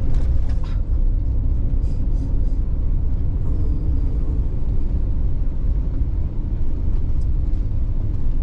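Steady low road and engine rumble heard from inside a camper van's cabin while driving.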